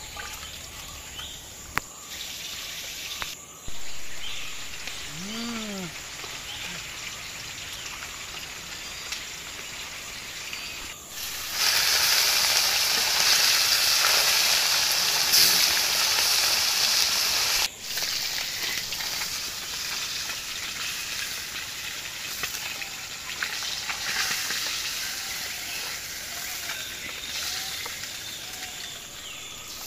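Whole fish frying in hot oil in an iron karahi: a loud, dense sizzle for about six seconds in the middle, cut off suddenly, over a faint outdoor background that holds one brief animal call early on.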